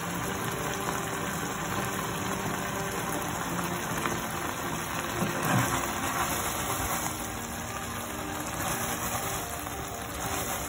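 Chicken curry sauce simmering in a non-stick frying pan: a steady bubbling sizzle.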